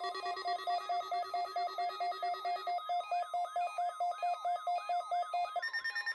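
Several NOAA weather radio receivers sounding their alarms at once, set off by the weekly test's 1050 Hz warning tone. The alarms are a fast electronic beep about five times a second, a rising chirp about twice a second, and a steady low tone that stops about three seconds in. Near the end the beeping gives way to a higher steady tone.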